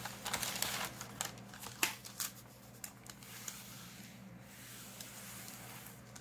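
Thin paper sheets rustling and crackling as they are lifted and laid over a loose Bible page, with several sharp crinkles in the first two seconds. Then a quieter stretch of soft sliding while a small iron is pressed across the sheet.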